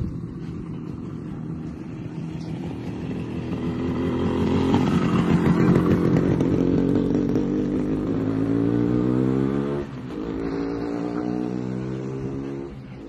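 A motor vehicle engine running and accelerating, its pitch rising steadily, then a sudden brief drop like a gear change and a second rise.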